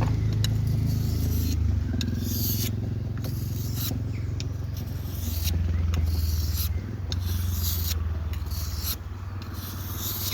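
Bushcraft knife blade drawn along the fine-grit side of a sharpening stone, a short scrape about once a second, over a steady low rumble.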